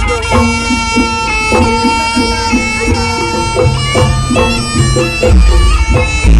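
Jaranan ensemble music led by a terompet (Javanese shawm) playing a melody of held notes that step in pitch, over regular drum strokes.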